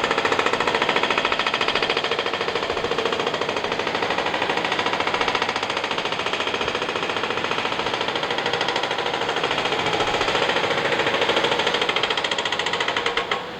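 Jackhammer hammering rapidly and continuously, then stopping just before the end.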